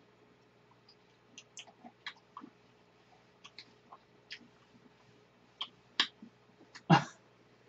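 Quiet eating: scattered small clicks and mouth smacks from spoonfuls of ice-cream parfait, with one short louder sound about seven seconds in.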